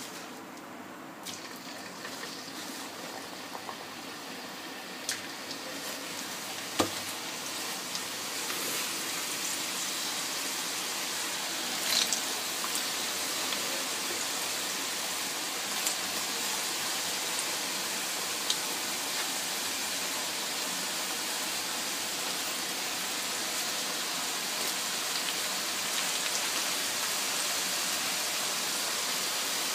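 Potato fries deep-frying in hot oil in a kadai on their second frying: a steady sizzle that builds over the first several seconds as the fries go in, then holds. A few sharp clicks sound through it.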